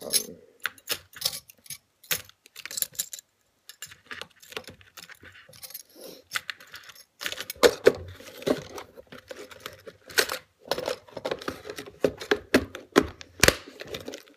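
Clear plastic compartment tackle box full of spinnerbait trailer hooks being handled and shifted on a countertop: a run of sharp plastic clicks and knocks, with small metal hooks rattling inside. The clicking grows busier and louder about halfway through.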